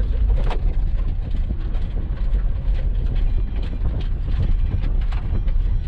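Tata Tiago hatchback driving slowly over a rough, stony surface: a steady low rumble of engine and tyres, with frequent short knocks and clicks.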